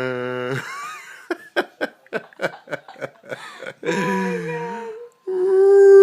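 Vocal sounds: a long held note fades out, then about ten quick breathy pulses like laughter. After that comes a wavering whimpering note and, near the end, a steady higher held note.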